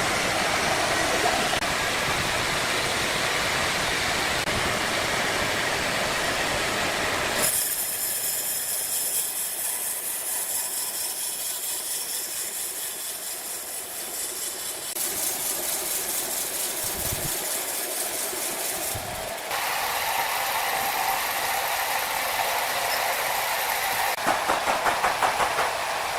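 Sawmill machinery running with a steady, loud mechanical noise. Its character changes abruptly several times, turning to a high hiss about a quarter of the way in, and breaking into rapid even pulsing near the end.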